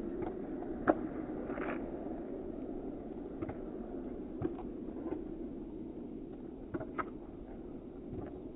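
Roller skis rolling on asphalt, a steady gritty noise, with scattered sharp clicks of ski pole tips striking the pavement. The loudest click comes about a second in.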